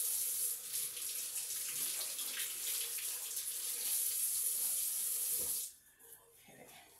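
Kitchen faucet running into the sink as potatoes are rinsed under the stream. The water shuts off suddenly near the end.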